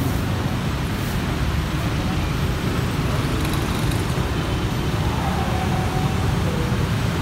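Steady street traffic noise: a continuous low rumble of passing motor vehicles.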